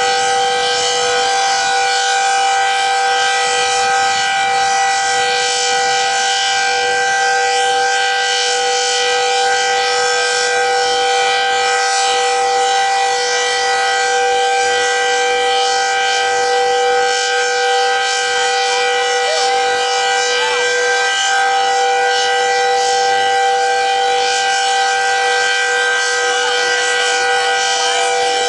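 Decot Red Arrow Model 12 outdoor warning siren sounding a full alert: a loud, steady two-note chord that holds its pitch without rising or falling.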